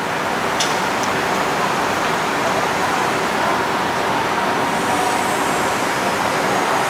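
Steady noise of a moving vehicle, with a short click about half a second in.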